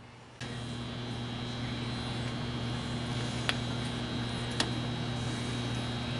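Steady electrical hum that starts abruptly about half a second in, with two sharp clicks near the middle as the steel spindle and its fittings are handled.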